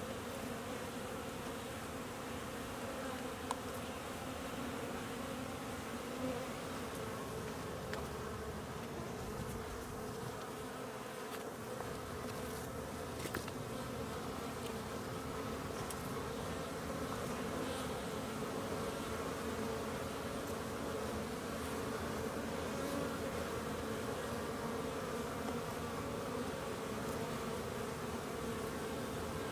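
Honeybees buzzing steadily, many flying in and out of the hive on a mild winter day's cleansing flights, the hum of the colony sitting in a few steady pitches.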